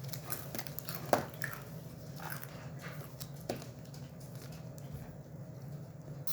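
Close-up eating sounds: someone chewing food, with small wet mouth noises and a few sharp clicks or crunches, the clearest about a second in and again near the middle, over a steady low hum.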